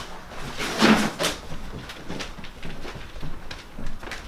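Footsteps and scuffs on a floor littered with debris, with a louder knock about a second in and lighter taps after it.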